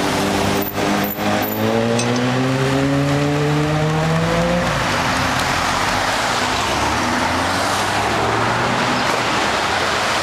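Suzuki GSX-R750 K8 inline-four engine accelerating hard, its pitch climbing steadily for about four and a half seconds, then dropping at a gear change and climbing again.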